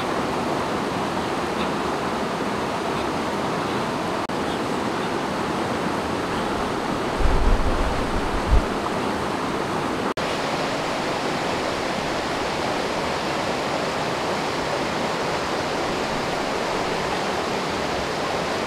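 Steady rush of water pouring over a small rocky cascade into a pool. A few brief low thumps come about seven to eight seconds in.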